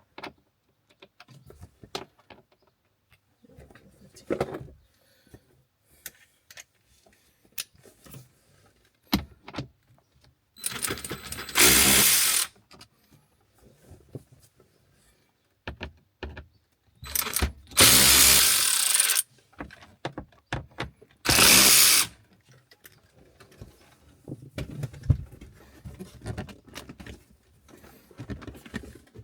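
Power drill-driver spinning out small Torx trim screws in three short runs, the second the longest, between scattered clicks and knocks of tools and plastic trim being handled.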